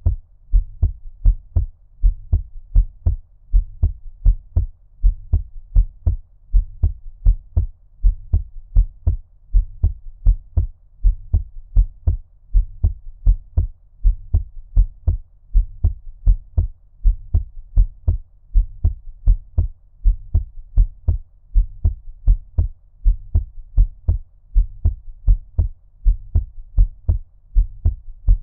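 Heartbeat at a normal resting rate, about one beat a second, each beat a low double thump (lub-dub). It sounds muffled, as if heard underwater, like ear cupping.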